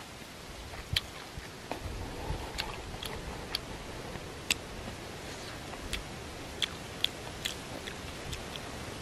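A person chewing a mouthful of roasted catfish and mango with the lips closed: irregular wet mouth clicks and smacks, a few a second.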